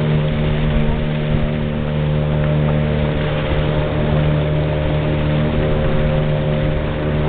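A boat's motor running at a steady, even pitch while under way, over a constant rushing noise.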